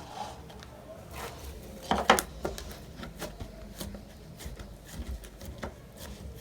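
Clear slime being handled and put into a small plastic pot: scattered soft clicks and taps, the loudest a sharp double tick about two seconds in.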